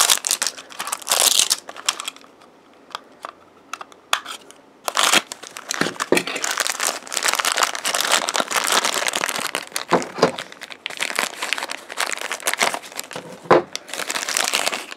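Crinkly toy-pack wrappers being crumpled and unwrapped by hand: a burst of crinkling, a pause of about three seconds, then near-continuous crinkling with a few sharper crackles as a red wrapper around a blind-pack figure is opened.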